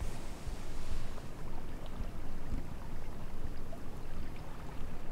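Wind buffeting the microphone: an uneven low rumble with a light hiss above it.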